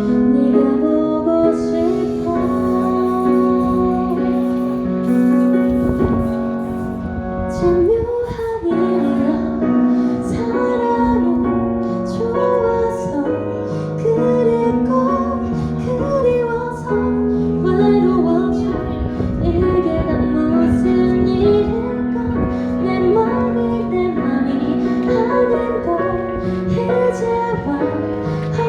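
Live female vocal performance of a ballad with keyboard accompaniment. The opening seconds hold sustained chords without the voice, and the singing comes in after about eight seconds.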